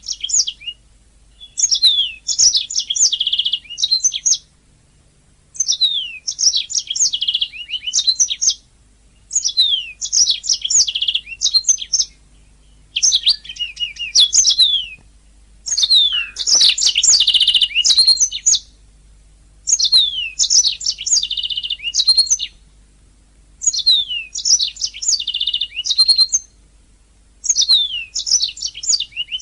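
Domestic canary singing in repeated phrases of rapid trills and quick downward-sweeping whistled notes, each phrase two to three seconds long with short pauses between.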